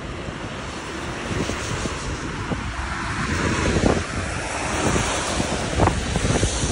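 Wind buffeting the microphone in irregular low rumbles, over a broad hiss of street traffic that swells and eases about a third of the way in.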